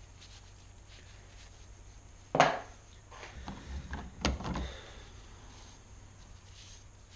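Handling noise: a sharp knock about two seconds in, then scraping and rubbing and a second sharp knock, as soaked wooden plane wedges and parts are lifted from a metal soaking tray and wiped with a rag.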